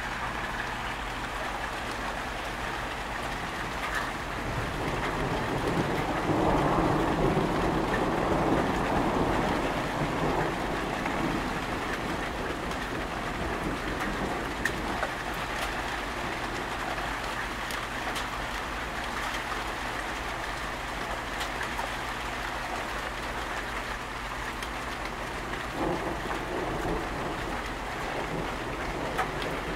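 Steady rain falling. A low rumble swells between about five and eleven seconds in, then fades back into the rain.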